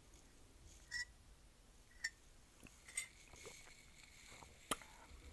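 Faint sipping from a ceramic mug with a spoon standing in it: a few soft, short clicks and sips about once a second, with one sharper click near the end.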